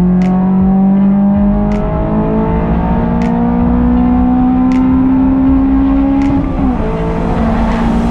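2001 Honda S2000's four-cylinder engine under way, its note rising slowly and steadily as the car gains speed, then dipping briefly near the end before it carries on. Faint sharp clicks come about every second and a half.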